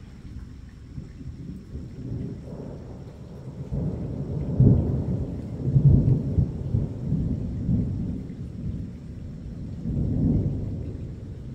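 Rolling thunder from a severe thunderstorm, a low rumble that builds a few seconds in, is loudest about five to six seconds in, and swells once more near the end.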